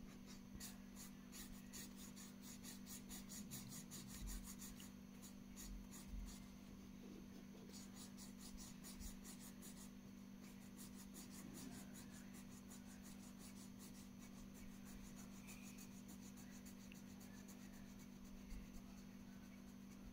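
Felt-tip marker scratching back and forth on paper as a wing is coloured in, in quick strokes about five a second with a few short pauses; the strokes fade out about two-thirds of the way through. A faint steady low hum lies underneath.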